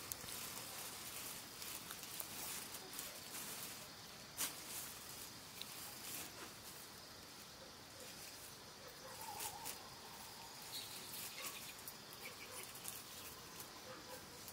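Faint rustling and crinkling of a plastic bag and leafy greens being handled and picked over, with scattered small clicks, the sharpest about four seconds in, over a steady faint high hiss.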